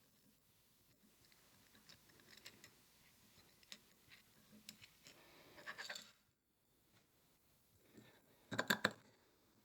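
Faint clicks and scrapes of metal camera-rig base plate parts being handled and fitted together, with a louder cluster of clicks near the end.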